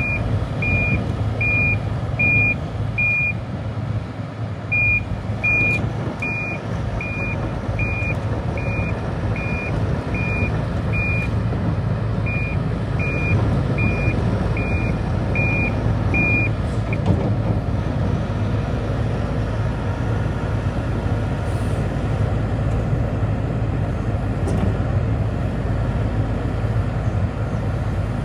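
Kobelco SK130LC-11 hydraulic excavator's diesel engine running steadily, with its travel alarm beeping about once every 0.8 seconds. The beeping pauses briefly about four seconds in, then stops for good about 17 seconds in while the engine keeps running.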